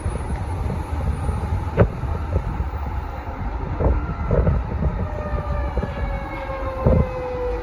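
Federal Signal 2001-SRN outdoor warning siren sounding one tone that slowly falls in pitch as the siren winds down. Under it runs a steady low rumble, with a few short knocks.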